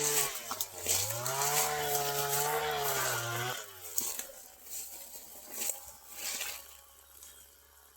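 A small engine revving up about a second in, holding a high steady pitch, then cutting off about three and a half seconds in. Faint scattered clicks follow.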